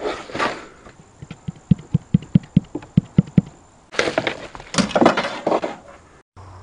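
A quick, even run of about a dozen hollow knocks on the boat's center console, about five a second, followed by louder rubbing and handling as the console top and speaker are worked into place by hand.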